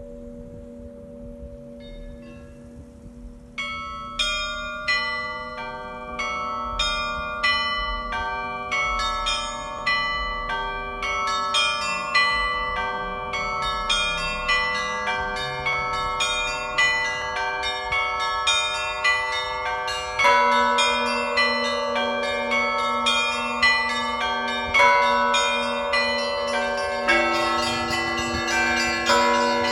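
Russian Orthodox church bells ringing. A few sparse strikes sound over the hum of a large bell, then from about four seconds in the small bells strike in a quick, continuous pattern. Deeper bells come in louder about two-thirds of the way through.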